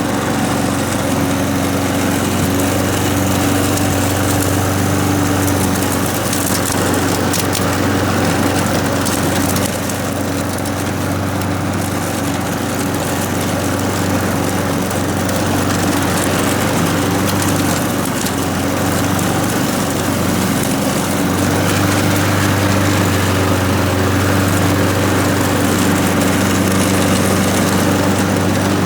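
Honda GCV160 single-cylinder lawn mower engine running steadily under way while the blade mulches leaves and grass, with scattered crackle from the chopped material. The engine note sags a little in the middle and picks back up near the end.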